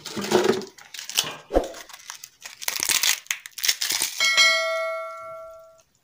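Dry red crackers (kerupuk merah) being broken up by hand over a plate, a dense crackling and crunching. About four seconds in, a bell chime from an on-screen subscribe-button animation rings once and fades away.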